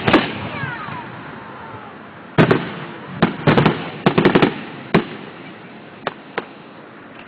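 Fireworks exploding, heard through a mobile phone's microphone: a bang right at the start, a quick run of bangs from about two to five seconds in, then two fainter pops.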